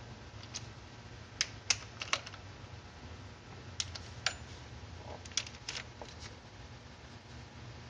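Hand ratchet clicking in short, irregular strokes as the water pump bolts on a Nissan KA24DE engine are snugged down, over a faint steady low hum.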